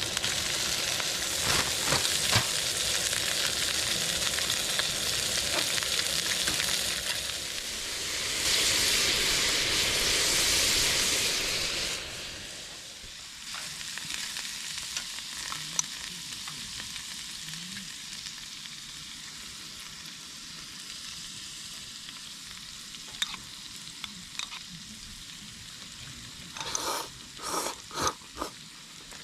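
Food sizzling and frying in a pan, swelling louder for a few seconds and then dropping abruptly to a quieter sizzle about twelve seconds in. A few sharp taps near the end.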